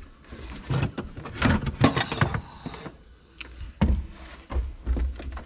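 Irregular knocks and clunks of hand tools and parts being picked up, handled and set down, with a few heavier thumps in the second half.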